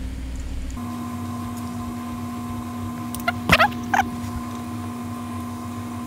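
Small metal hardware (bolts and T-nuts) handled against a plate: a couple of short clinks a little past halfway. Under them is a steady electrical hum that sets in just under a second in.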